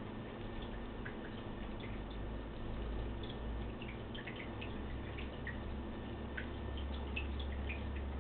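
A cat chewing and gnawing corn kernels off the cob: small, irregular wet clicks, several a second.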